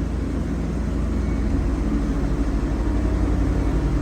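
Wood-Mizer LT40 band sawmill running steadily, a low engine drone with a pulsing throb that grows a little stronger about a second and a half in.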